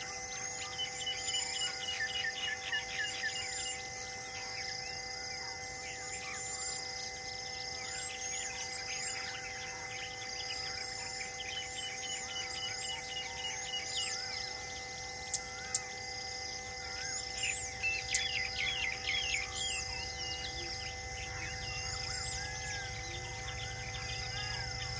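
Many birds chirping and trilling in short repeated calls over a steady droning tone. A low hum swells in near the end.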